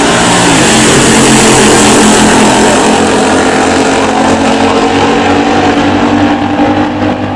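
A 1964 Plymouth Belvedere's 426 Max Wedge V8 and a Dodge Coronet's V8 launching off the drag-strip start line at full throttle and running down the track side by side. The engine sound is loudest in the first few seconds and fades slowly as the cars pull away.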